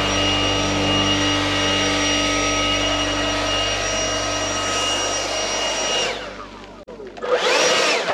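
Blower running steadily with a high whine, then let off about six seconds in so that it spins down with falling pitch, followed by one short burst near the end.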